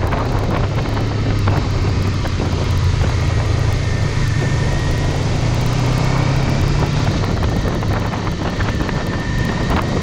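Honda CBR500R's parallel-twin engine pulling at steady road speed, with wind rushing over the microphone. The engine note climbs a little around the middle and eases again near the end.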